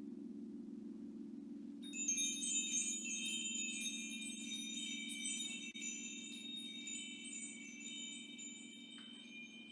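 A crystal singing bowl holding a steady low tone that beats slowly, joined about two seconds in by a wind chime whose cluster of high notes rings on and slowly fades.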